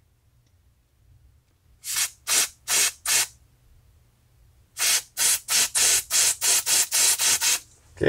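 Aerosol carburetor cleaner sprayed in short hissing bursts into a carburetor jet, flushing the passage clean. There are four quick squirts, then after a pause a rapid run of about ten more.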